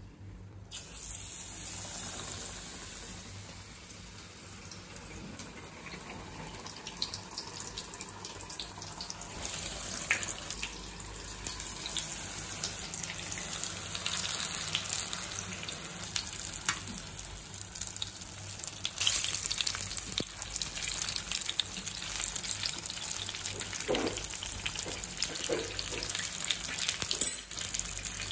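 Besan-battered egg bondas frying in hot oil: a steady crackling sizzle, with a single sharp knock near the end.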